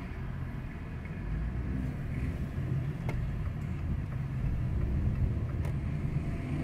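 A car's steady, low engine and road rumble, growing a little louder after about a second.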